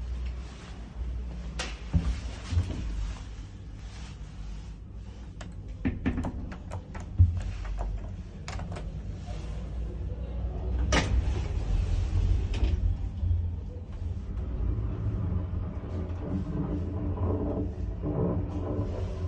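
Traction elevator car with its doors shutting and a run of clicks and knocks in the first half, then the car travelling with a steady low rumble and hum that grows louder in the last few seconds.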